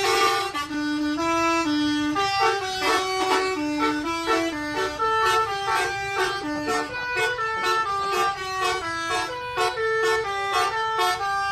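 Bus telolet horn, a set of electric multi-tone air horns, playing a quick melody of short stepped notes, several tones sounding together, over a steady low engine and road rumble.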